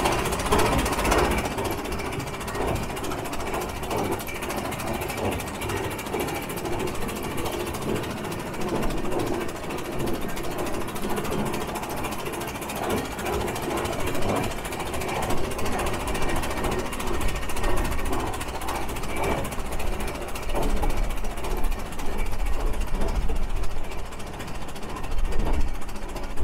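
Big Four 4-30 prairie tractor's four-cylinder engine running steadily as the tractor drives along, a rhythmic mechanical clatter.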